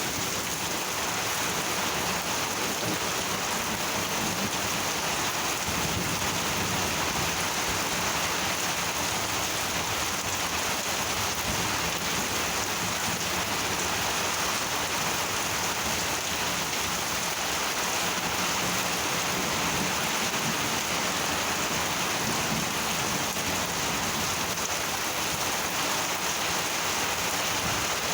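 Monsoon rain falling steadily, an even hiss with no breaks, and a low rumble of thunder underneath.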